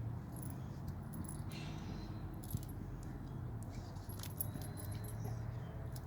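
A dog's metal collar tags jingling in short clinking rattles as she moves, over a steady low hum.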